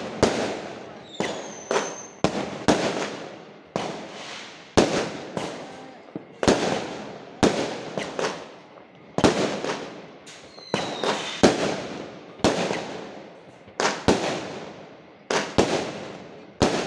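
Fireworks going off in a long string of sharp bangs, about one a second at uneven spacing, each trailing away quickly; a short whistle sounds about a second in and again about ten seconds in.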